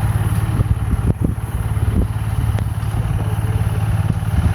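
INARI combine harvester's engine running steadily, with scattered knocks and clatter over it.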